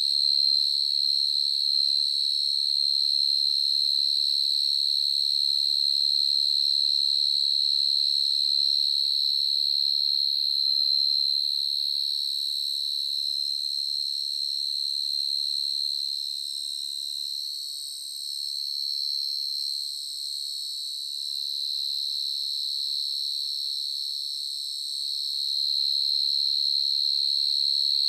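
A burrowing cricket calling: a very loud, unbroken, high-pitched trill held at one pitch. It dips somewhat in loudness about two-thirds of the way through, then comes back up near the end.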